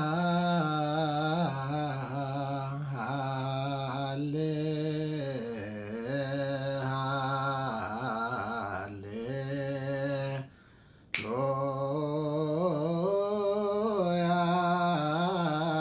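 Solo male voice chanting an Ethiopian Orthodox Ge'ez hymn (an abun with hallelujahs) in long, drawn-out melismatic lines, unaccompanied. There is one pause for breath about two-thirds through, ended by a sharp click as the chant resumes.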